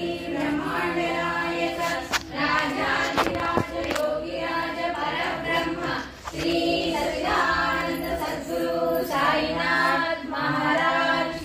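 A group of devotees singing a devotional chant together in chorus, with held notes running steadily underneath the voices.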